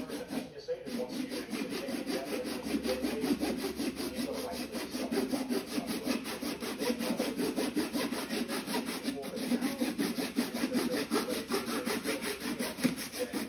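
Lime-green plastic of a Ryobi 18V tool being worked by hand with a metal file, a steady run of quick back-and-forth rasping strokes that briefly pauses about half a second in and again near nine seconds.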